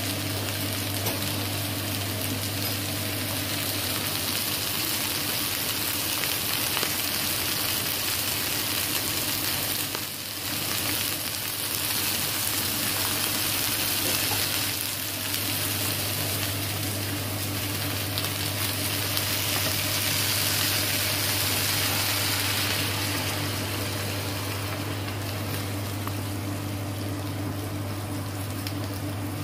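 Sliced onion, carrot, potato, okra and peppers sizzling steadily in hot oil in a frying pan, with a little water just added. A metal spoon stirs them near the end, over a steady low hum.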